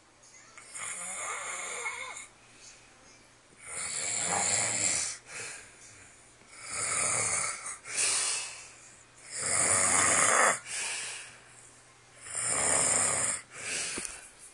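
A man snoring loud and steadily: five long snores about three seconds apart, each followed by a shorter, quieter breath sound.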